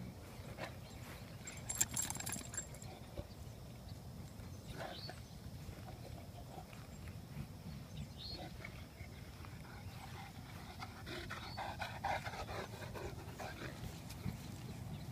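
A Saint Bernard sniffing and panting as it noses through the grass, with a few quick clicks about two seconds in and a steady low rumble underneath.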